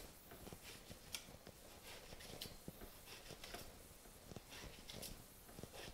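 Faint, irregular taps of a chef's knife striking a plastic cutting board as pork fat is diced into small cubes.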